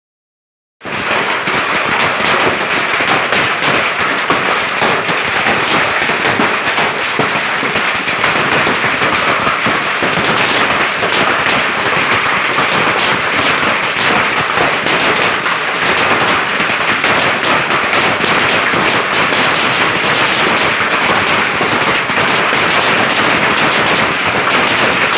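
Heavy hailstorm: a dense, steady clatter of hailstones pelting down. It starts suddenly about a second in.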